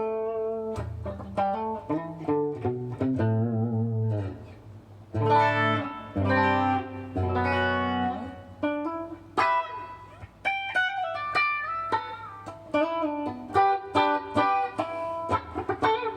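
Kiesel Vader electric guitar with Kiesel Polarity pickups in passive mode, played with a clean tone: single-note lines with vibrato and bends, and a few held chords about halfway through.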